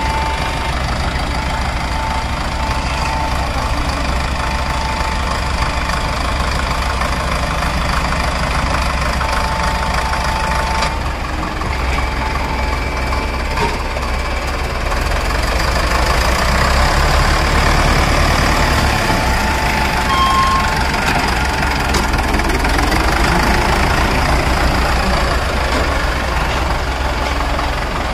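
Diesel tractor engine running steadily with an even low rumble.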